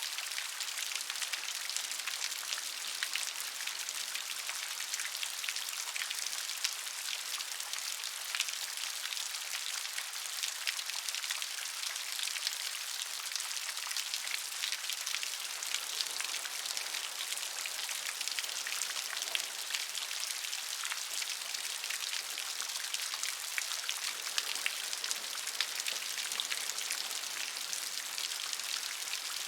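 Steady rainfall, a continuous hiss of rain dotted with many individual drops striking a surface.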